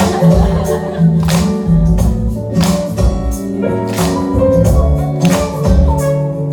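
Live band music without vocals: a drum beat with cymbals, a bass line and held keyboard chords.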